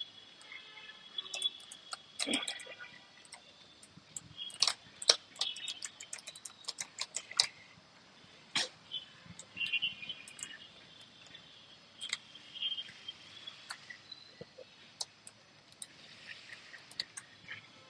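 Irregular sharp clicks and taps of laptop keyboard keys being worked over during cleaning, some louder than others. Faint bird chirps come and go in the background.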